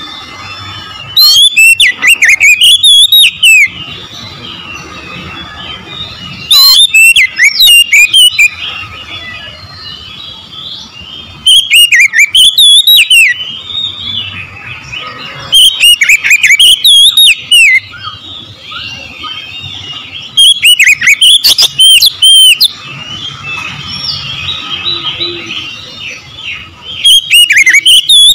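Oriental magpie-robin singing in loud bursts of rapid, varied whistles, each about two seconds long and coming every four to five seconds, six in all. Fainter twittering fills the gaps between the bursts.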